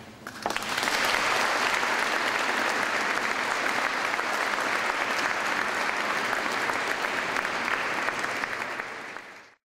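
Audience applauding at the end of a mandolin orchestra's piece. The applause starts about half a second in, holds steady, and cuts off suddenly near the end.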